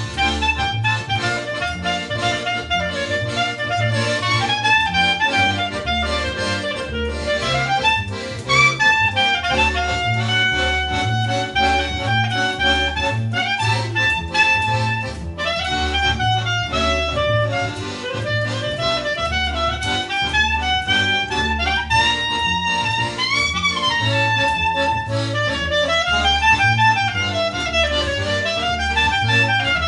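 Live instrumental music: an accordion plays a wavering, sliding melody over a steady, evenly pulsed bass line.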